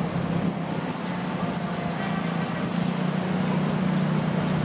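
Many motorcycle engines running as the riders cross the tracks together, a steady engine drone over traffic noise.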